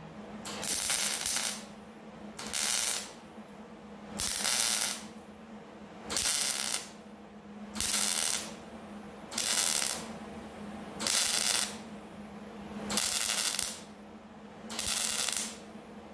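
MIG welder stitch-welding a sheet-metal butt seam on a car rocker panel: nine short bursts of crackling arc, each under a second, about every one and a half to two seconds. A faint steady low hum runs underneath.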